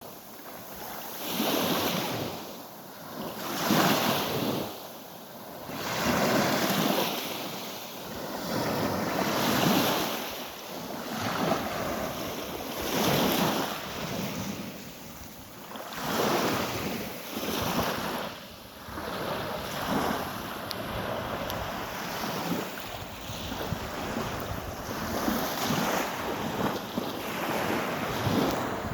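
Sea waves washing in on the shore, surging and receding every two to three seconds, with wind buffeting the microphone.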